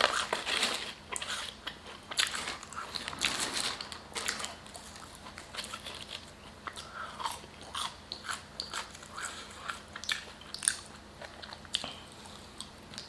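A person chewing and biting fast food close to the microphone, with irregular crunches and wet mouth sounds.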